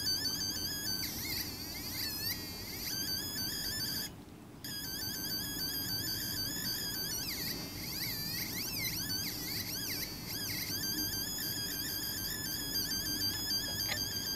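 Electronic sound-effects circuit on a breadboard producing a high, buzzy tone that repeats in quick chirping pitch sweeps. It cuts out briefly about four seconds in, then swoops in wider warbles for a few seconds before settling back into the repeating chirp.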